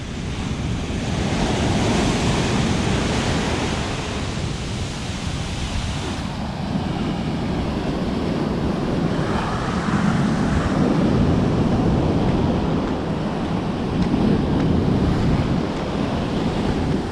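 Ocean surf washing onto a sandy beach in slow swells, with wind buffeting the microphone.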